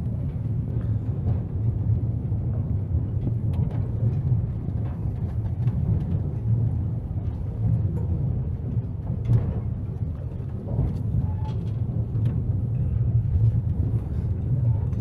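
Steady low rumble with wind buffeting the microphone aboard a moving horse-drawn tram, with a few faint knocks.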